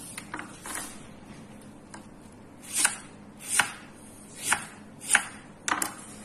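Kitchen knife slicing a red onion on a wooden cutting board: separate single cuts, each a short knock of the blade through the onion onto the board. Two faint cuts come near the start, then about five louder ones, a little under a second apart, in the second half.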